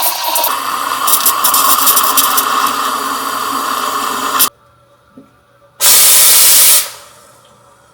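Espresso machine steam wand hissing loudly while steaming milk, then cutting off sharply about four and a half seconds in; a second short, loud blast of steam follows a second or so later.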